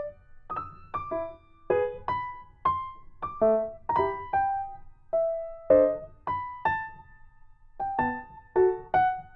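Background music on a keyboard: separate struck notes and small chords, about two a second, with a brief pause about seven seconds in.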